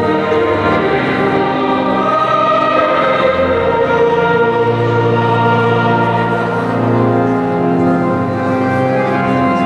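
Church choir singing with organ accompaniment, moving through long held chords.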